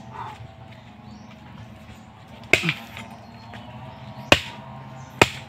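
Three sharp chopping strikes into a nipa palm fruit cluster, one about halfway through and two close together near the end.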